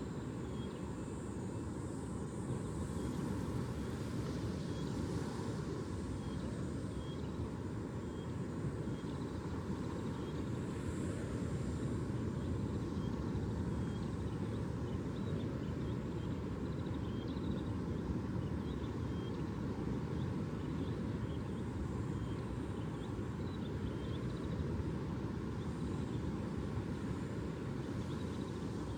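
Steady low outdoor rumble with no rise and fall, with faint short high chirps scattered through it.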